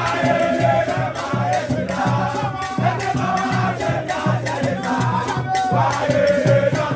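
Upbeat music with a steady beat of about two pulses a second, shaker-like percussion and a melody over it.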